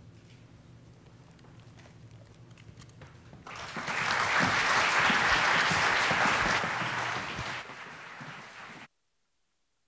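Audience applauding, starting about three and a half seconds in after a few seconds of quiet room tone, then thinning and cutting off abruptly about a second before the end.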